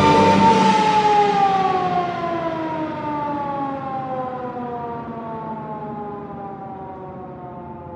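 A loud tone with many overtones strikes suddenly, then slowly slides down in pitch and fades away, like a siren winding down. It is a sound effect in the film's soundtrack.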